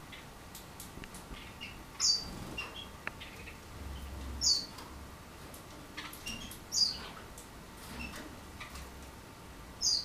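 Canary calling: four short, high call notes about two and a half seconds apart, each a quick downward sweep, with softer chirps between them.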